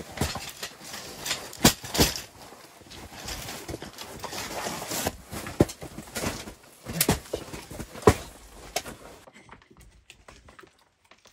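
Boots crunching on snow and folding camp cots being carried in and set up, with several sharp knocks and clacks of the cot frames; the loudest are at about 2 s and about 8 s. It goes much quieter near the end.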